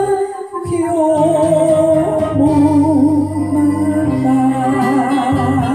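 A woman singing a Japanese ballad into a microphone over a karaoke backing track, holding long notes with vibrato. The accompaniment thins briefly just after the start, then carries on.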